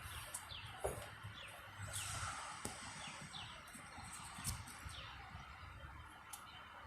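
Small birds chirping: a string of short, falling chirps, about two a second, with a few sharp clicks in between.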